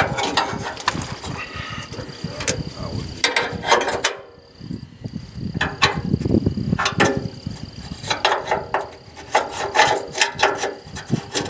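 Socket ratchet wrench clicking in several short bursts with pauses, tightening the fuel tank strap bolts.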